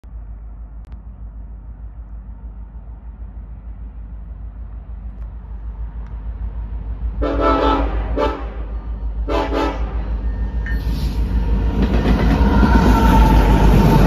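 Horn of a BNSF EMD SD70ACe diesel locomotive leading a loaded coal train, sounding a longer blast about seven seconds in, a brief one, then a shorter blast. The rumble of the approaching locomotives then grows steadily louder as the lead unit reaches the tracks alongside.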